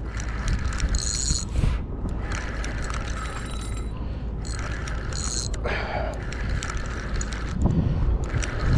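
Spinning reel being cranked steadily, its gears ticking as the line is wound in on a hooked coho salmon.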